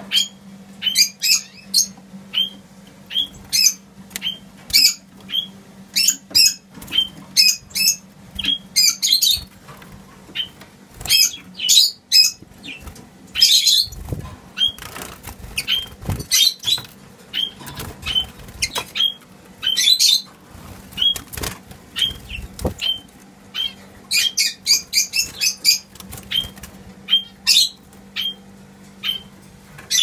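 Caged songbirds chirping: a steady run of short, sharp high calls, some in quick clusters, with a few low thumps in the middle, over a steady low hum.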